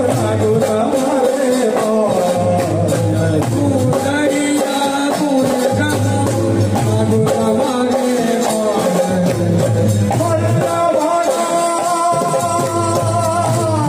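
Amplified Gujarati raas kirtan devotional music: singing over sustained instrument tones, with drums and jingling shaker-like percussion keeping a steady, repeating dance rhythm.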